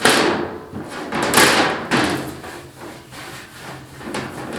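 Kit parts and packaging being handled, scraping and clattering: two loud rattles in the first two seconds and a smaller one near the end.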